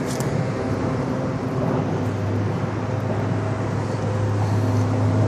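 Steady low engine drone, growing slightly louder near the end.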